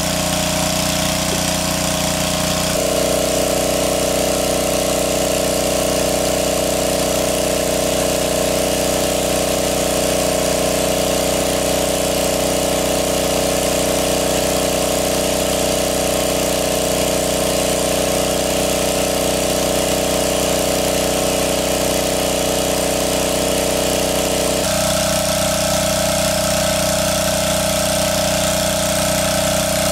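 Small petrol engine of a portable water pump running steadily at a constant speed, drawing water out of the pond through its hose. Its tone shifts slightly about three seconds in and again near the end.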